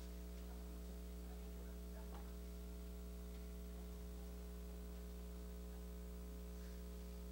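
Faint, steady electrical mains hum with its overtones, picked up by the audio system, with a few soft rustles.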